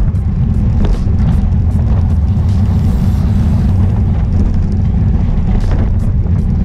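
Wind buffeting a bike-mounted action camera's microphone at race speed: a loud, steady low rumble, with faint ticks about twice a second.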